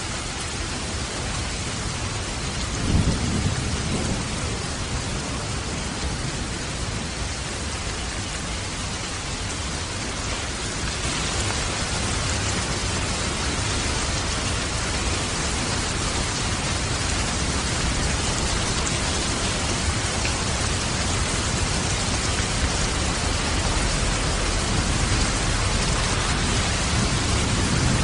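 Steady rain and waterfall noise. Low rolls of thunder rumble about three seconds in and again near the end.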